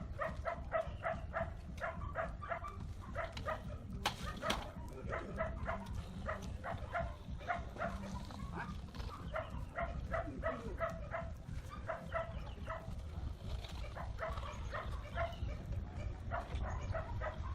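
Rapid series of short, high-pitched animal calls, about three a second with a few brief pauses, over a steady low rumble.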